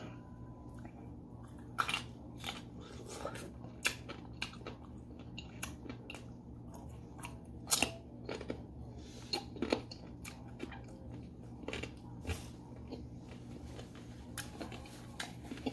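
A person biting into and chewing crisp slices of raw green mango, with irregular crunches all through.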